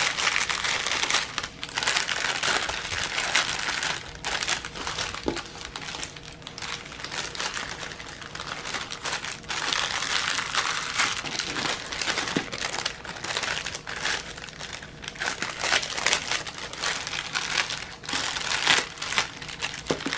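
Thin clear plastic packaging bags crinkling and rustling unevenly as hands handle them and pull one open.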